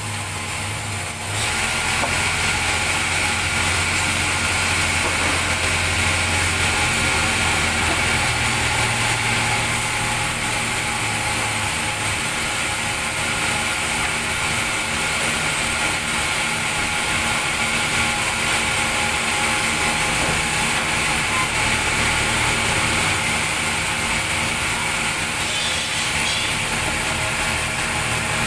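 Sawmill band saw running and cutting lengthwise through a large log, a steady loud machine noise that gets louder about a second and a half in as the blade works into the wood.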